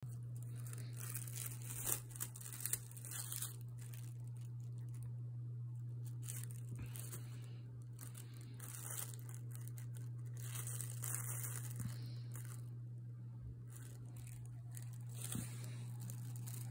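Honeycomb kraft paper packing wrap crinkling and tearing in irregular rustles as a cat paws and noses at it, with a few sharp crackles a couple of seconds in. A steady low hum runs underneath.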